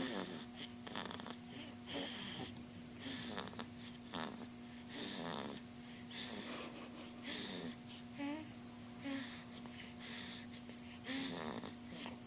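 Snoring: short, wheezy breaths about once a second, over a steady low hum.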